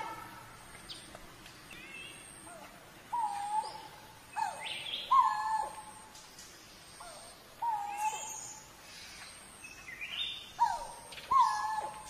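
Coral-billed ground cuckoo calling: about six short calls at much the same low pitch, each sliding down and then holding briefly, spaced unevenly. Fainter, higher chirps from other birds sound between them.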